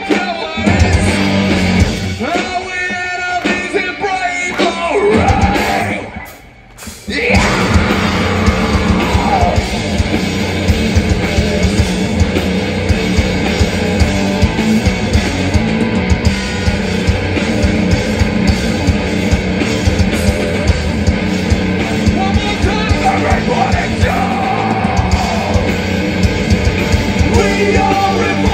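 Live post-hardcore rock band playing loudly through a festival PA: distorted guitars, bass and pounding drums under shouted and sung vocals. The band drops nearly out for about a second some six seconds in, then crashes back in at full volume.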